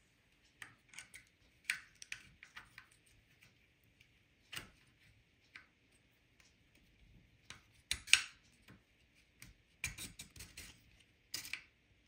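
Scattered light clicks and taps of a metal hinge pin and plastic washer being handled and fitted into an RC car's suspension arm and mount, with a sharper pair of clicks about eight seconds in.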